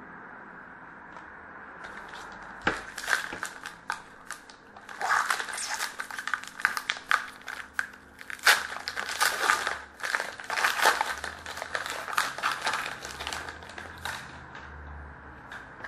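A 2011-12 Panini Rookie Anthology hockey card pack wrapper being torn open and crinkled by hand. A dense run of crackling starts about three seconds in and dies away near the end.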